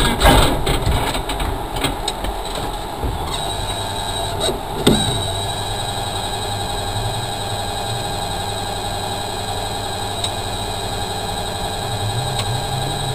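Ford Focus rally car's engine idling steadily with the car at a standstill, the louder driving noise falling away at the start. A single knock about five seconds in.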